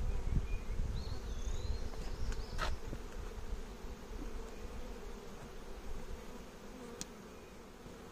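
Honeybees buzzing around an opened hive: a steady hum from a colony stirred up by the hive being split and worked, growing gradually quieter. Two sharp clicks, a little under three seconds and about seven seconds in.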